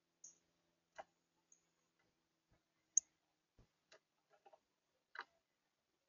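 Faint, scattered clicks and taps from a male northern cardinal feeding on a seed tray, about seven in all, irregularly spaced. The sharpest, about halfway through, is a short high tick.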